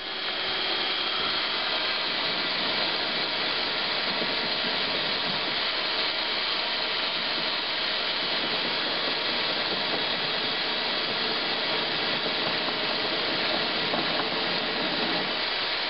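Metal lathe driven by a DC electric motor, running steadily while its cutting tool takes a light finishing cut on the outer edge of a steel mower spindle: an even mechanical hiss with a faint steady whine.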